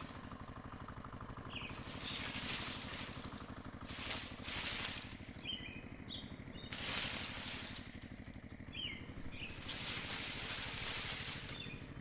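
A small engine running steadily with a rapid low putter. Bursts of hiss about a second long come and go over it, and there are faint chirps.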